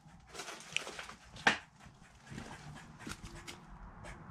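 Squirrel making a few short, sharp calls, the loudest about one and a half seconds in.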